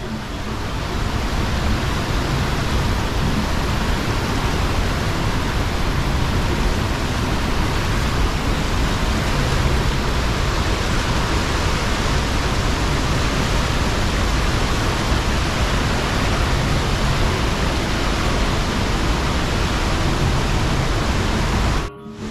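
Tegenungan Waterfall's falling water: a steady, loud, unbroken rush of noise.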